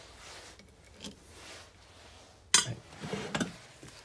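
Steel differential parts and tools being handled on a workbench: scattered metal clinks and rubbing, with one sharp knock about two and a half seconds in and a short run of smaller knocks after it.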